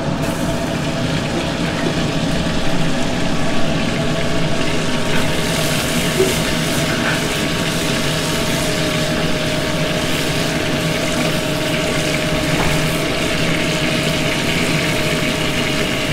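Steady roar of a commercial kitchen's gas range and ventilation. From about five seconds in, light sizzling is added as potatoes and carrots fry in hot pork fat in a sauté pan.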